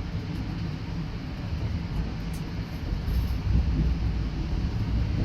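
Train running along the track: a steady low rumble of wheels on rails, growing a little louder about three seconds in.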